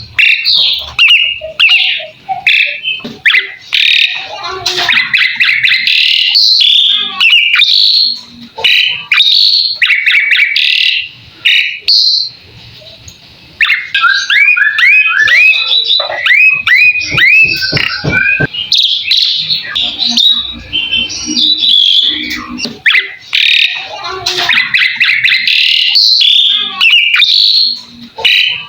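Jalak suren (pied starling) singing on and on: a dense, varied run of chattering and whistled notes, with a string of quick sliding whistles just after a short pause near the middle.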